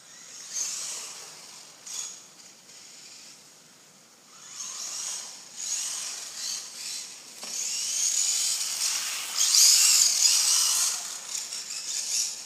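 Electric RC truck motor (1/16 Traxxas Slash VXL, brushless) whining in waves that rise and fall in pitch with the throttle as the truck drives on a wet street. The loudest, longest run is in the second half.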